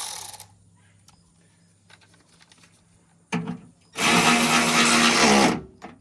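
Cordless electric ratchet running in short bursts. There is a brief spin at the start, a quick blip a little past three seconds, and a steady run of about a second and a half near the end, driving 7 mm fasteners.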